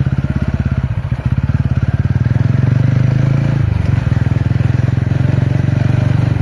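TVS Ronin's single-cylinder motorcycle engine running under way at steady, low revs, its exhaust pulsing evenly. The note dips briefly about a second in and changes again near four seconds.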